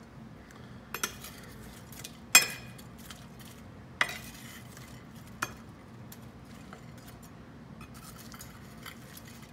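A few sharp clinks and knocks of utensils on a ceramic plate, the loudest about two seconds in, then light clicking of a metal spoon against the plate as fried chicken wings are tossed near the end.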